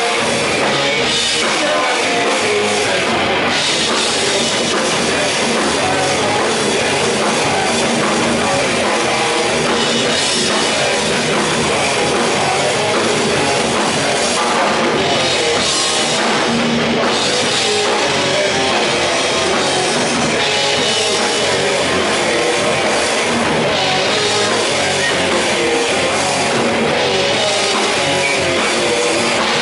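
Rock band playing loud and without a break: distorted electric guitars, bass guitar and drum kit.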